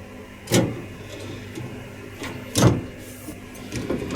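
Plastic fittings on a dishwasher's upper rack being flipped and knocked into place by hand: two sharp clacks, about half a second in and again past the middle, with fainter clicks and rattles between, over a low steady hum.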